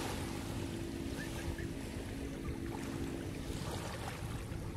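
Steady rush of wind and surf at the seashore, with a low steady hum underneath that stops about three and a half seconds in.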